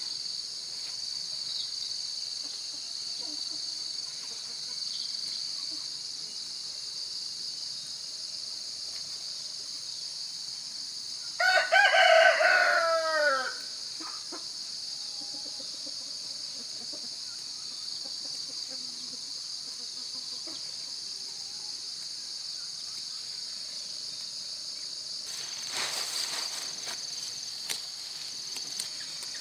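A rooster crows once, a call of about two seconds that falls in pitch at its end, over a steady high chorus of insects.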